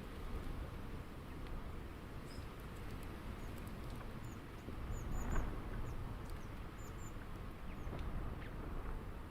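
Outdoor backyard ambience: a steady low rumble that swells briefly about five seconds in, with short, high bird chirps scattered throughout.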